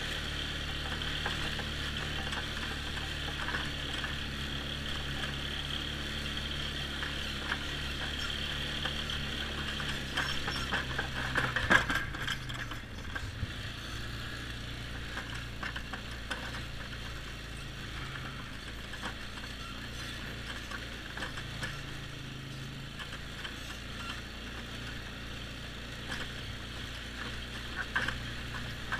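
Polaris X2 ATV engine running steadily under the rider. About twelve seconds in there are a few sharp knocks and rattles, and the engine note then drops lower and stays there.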